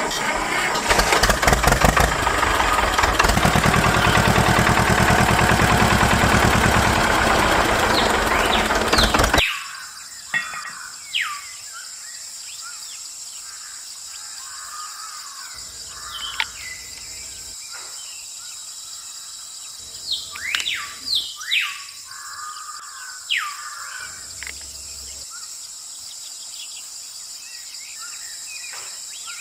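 An engine running with a fast, steady pulse for about the first nine seconds, then cutting off abruptly. After it, birds chirp in short sweeping calls over a steady high insect-like hiss.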